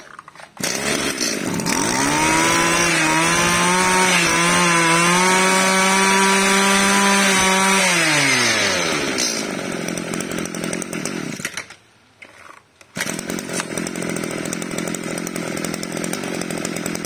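Echo 265 two-stroke brush cutter engine revved up to full throttle, held there for about six seconds, then let back down to idle. Its sound cuts out for about a second and then it idles steadily again.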